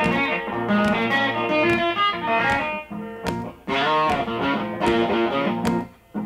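Background music: blues guitar playing between the song's sung lines, with no singing in this stretch.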